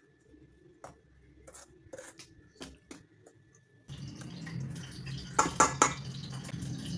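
A metal spoon clinking and scraping against a stainless steel bowl while dry flour is mixed in it: a few light taps in the first half, then three sharp, louder clinks in quick succession near the end over a low steady hum.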